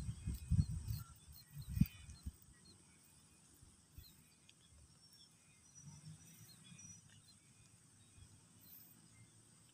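Quiet open-air rural ambience: low irregular thumps and rumbles in the first two and a half seconds, then faint scattered bird chirps over a steady high hiss.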